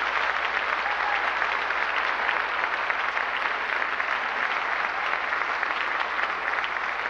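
Audience applauding steadily, a dense even clatter of many hands clapping.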